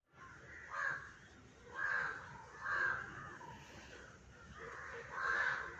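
Harsh animal calls, four in all: three about a second apart, then a longer one after a pause of about two seconds.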